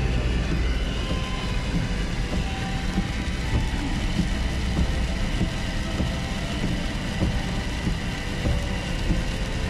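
Car driving on a wet road in heavy rain, heard from inside the cabin: a steady low road-and-tyre rumble with rain pattering on the windscreen.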